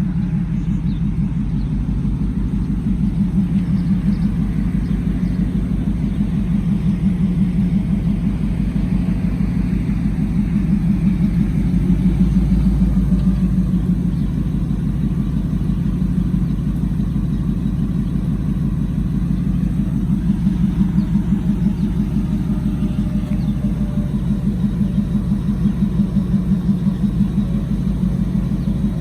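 2002 Ford Lightning's supercharged 5.4-litre V8 idling through long-tube headers and a Bassani cat-back exhaust, a steady low rumble with an even pulsing exhaust note.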